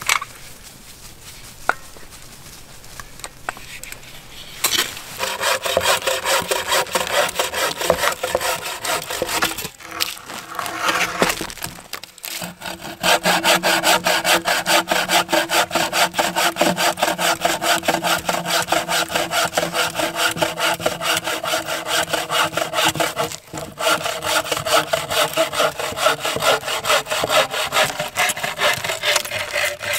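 Wooden-framed bow saw cutting through a log in fast, steady back-and-forth strokes, with a ringing tone from the blade. The sawing starts about five seconds in after a few light knocks, and breaks off briefly twice.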